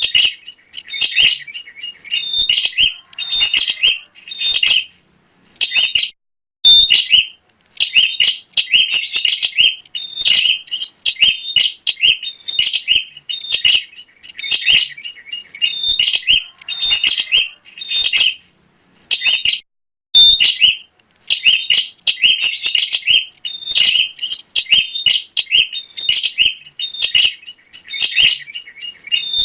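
Prenjak (prinia) singing energetically: loud, rapid phrases of sharp, high chirps repeated over and over, with short pauses about five seconds in and again near twenty seconds.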